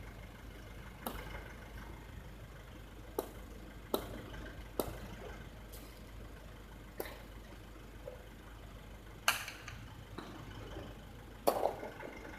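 Hard jai alai ball (pelota) knocking sharply on the concrete court, about eight irregular cracks, the loudest two near the end, over a low steady hum.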